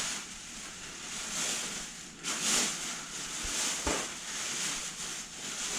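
Packaging rustling and rubbing in uneven swells as the plane's fuselage is unwrapped and handled, with a couple of light knocks about three and a half seconds in.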